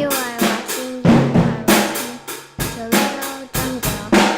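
Drum kit played in a fill of about a dozen loud strikes on snare and drums, each with a short ringing decay.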